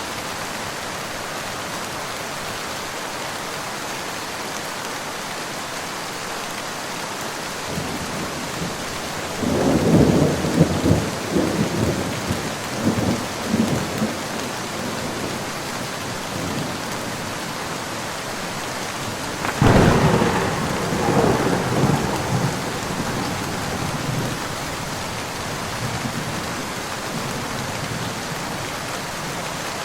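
Steady rain falling, with two peals of thunder: a rolling rumble that builds about eight seconds in, and a sharper crack about twenty seconds in that rumbles on for a few seconds.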